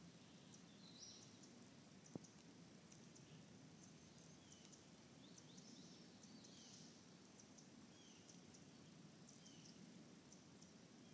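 Near silence in woodland: faint, distant small birds chirping now and then, over a low background hush. A single sharp click about two seconds in.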